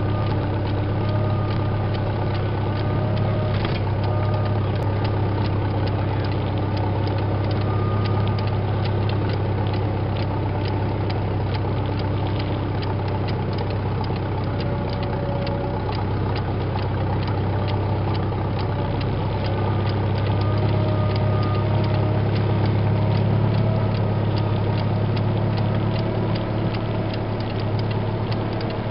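Tractor engine running steadily at low speed while pulling a two-row corn planter, with a rapid light clicking from the planter's chain-driven mechanism.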